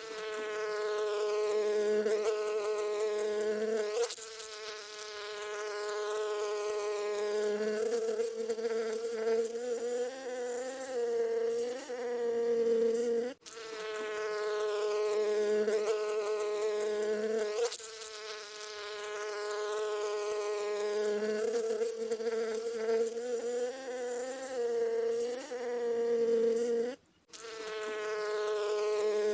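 Bees buzzing in flight: a steady droning buzz that wavers slightly in pitch and swells and fades a little. It cuts out briefly twice, about halfway through and near the end, and each time the same stretch of buzzing starts over as a loop.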